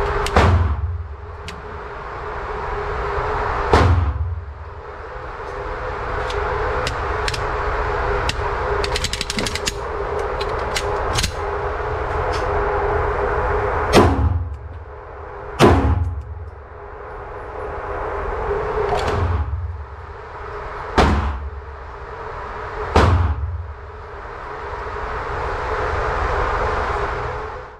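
Handgun shots on an indoor range: about seven loud shots with a booming echo, some in quick pairs under two seconds apart, others several seconds apart. Fainter sharp cracks come between them, over a steady hum.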